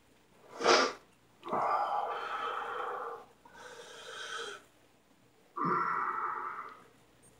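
A man breathing hard through his mouth: a quick sharp breath, then a long loud exhale, a quieter breath, and a second long loud exhale.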